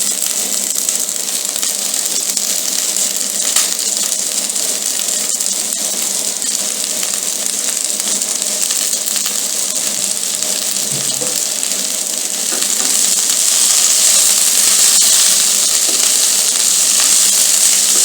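Chopped cabbage and white onion sizzling as they fry in a little oil in a pan, a steady hissing sizzle that grows louder about two-thirds of the way through. A single light click sounds a few seconds in.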